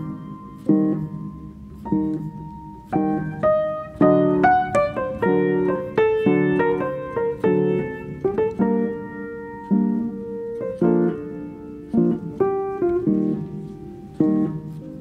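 Background piano music: chords and a slow melody, each note struck and dying away.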